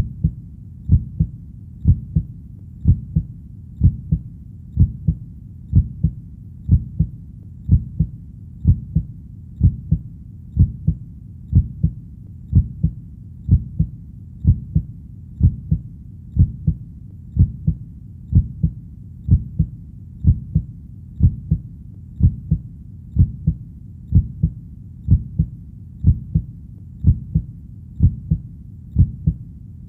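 Heartbeat, slow and steady at about one beat a second. Each beat is a low double thump, the lub-dub of the heart.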